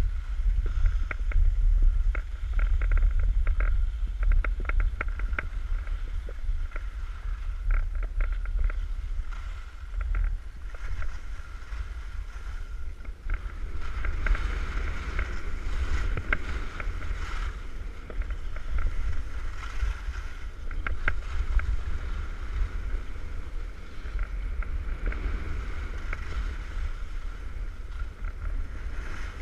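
Wind buffeting the microphone of a GoPro carried by a skier moving downhill, a heavy rumble, with the scraping and chatter of skis carving over snow on top.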